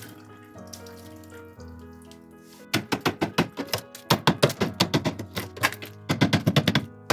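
Water splashing in quick, irregular spurts from about three seconds in, as it is poured over ice inside a fridge's freezer compartment to melt it free, over steady background music.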